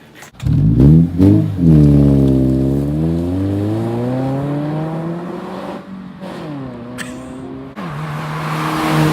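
Car engine revving and accelerating: a couple of quick blips, then a long pull with the pitch climbing slowly, a break near six seconds, and a steadier note near the end.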